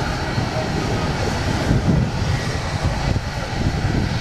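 Jet engines of an airliner at takeoff power: a loud, steady roar that is heaviest in the low end.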